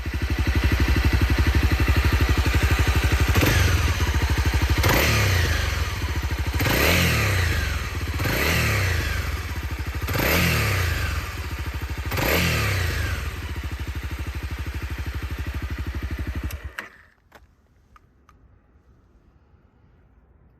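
Honda CRF250L single-cylinder engine idling and blipped six times, the revs rising and dropping back each time, then switched off about 17 seconds in. The blips test for the rattle on closing the throttle, which points to a slack cam chain needing a new tensioner.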